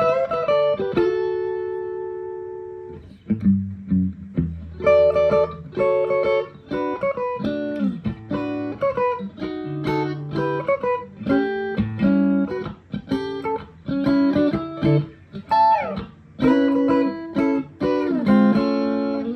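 Electric guitar, a Fender Todd Krause '57, played with a clean tone through a Mesa/Boogie Mark-series tube amp. A chord rings out and fades near the start, then some low notes, then a run of picked single notes and chords.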